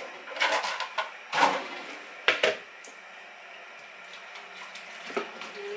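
A few short knocks and rustles of kitchen items being handled, three sharp ones in the first two and a half seconds, then a faint steady hiss.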